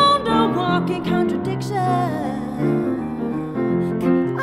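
Grand piano played with a woman singing over it, her held notes wavering and sliding down in pitch in the first couple of seconds.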